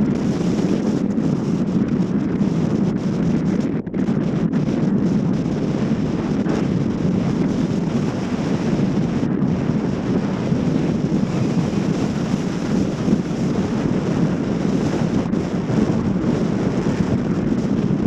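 Strong wind buffeting a GoPro Fusion camera's microphones: a loud, steady rush of wind noise.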